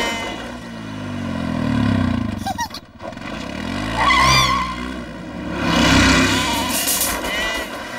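Small motor vehicles drive past one after another: a lawn mower, a quad bike, then a tractor, each engine note swelling and fading as it goes by, with the pitch sliding. A short high gliding whine sounds about four seconds in.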